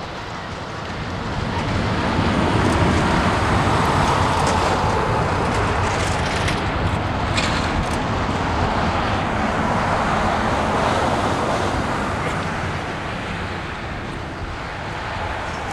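A Boeing 787-8's jet engines at taxi power: a steady rushing hum that swells as the airliner taxis past and eases again near the end.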